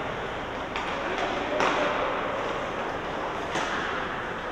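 Ice hockey play in an arena: a handful of sharp knocks and clacks of sticks, puck and boards, the loudest about one and a half seconds in, over a steady arena din.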